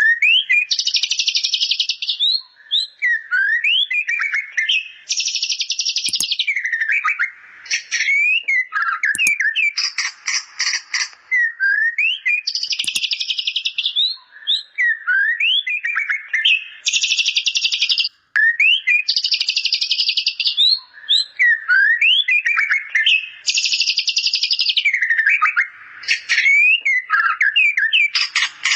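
White-rumped shama (murai batu) singing, its song filled with imitations of the bar-winged prinia (ciblek). Short slurred whistled notes alternate with dense, buzzy rattling trills about a second and a half long, repeated about eight times.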